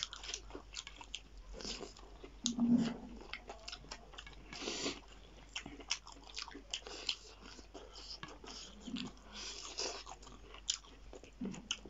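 Close-up eating sounds of two people chewing and biting food eaten by hand, with irregular wet clicks, smacks and crunches. A brief low sound about three seconds in stands out above the chewing.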